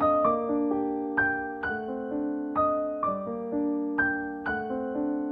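Background music: a gentle piano-like keyboard melody, notes struck about twice a second and left to ring and fade.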